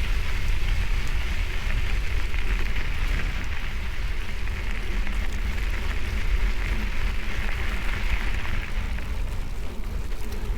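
Bicycle tyres rolling over a gravel road, a steady gritty hiss, with wind buffeting the microphone as a low rumble underneath.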